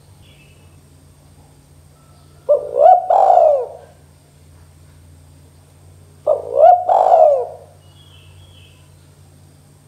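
Spotted dove cooing: two phrases about three and a half seconds apart, each a quick short note followed by two longer, arching coos.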